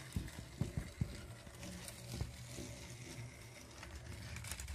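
Motorised Thomas Trackmaster toy engine running on plastic track: a steady small-motor whir with gear clatter, and a few knocks in the first second.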